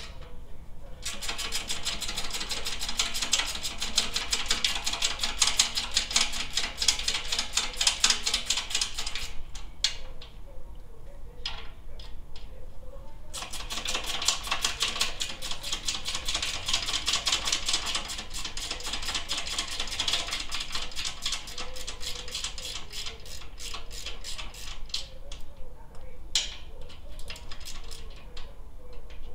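Hand ratchet wrench clicking rapidly as it backs off a muffler mounting bolt, in two long runs with a pause of a few seconds between them and a few stray clicks near the end.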